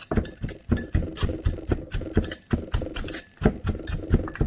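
Pestle knocking in a mortar as papaya salad is pounded and mixed: a quick, uneven run of dull knocks, about four a second.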